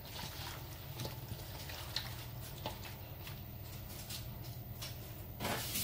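Hands working seasoned meat in a stainless steel bowl: faint wet squishing and a few light clicks over a low steady hum. Near the end, running water from a tap starts.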